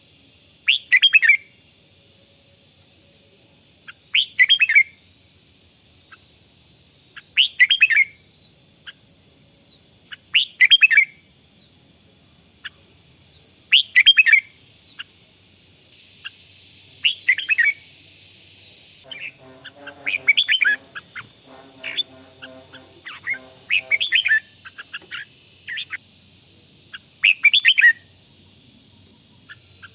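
Red-whiskered bulbul singing short, loud chirping phrases about every three seconds, coming closer together for a few seconds past the middle, over a steady high-pitched tone.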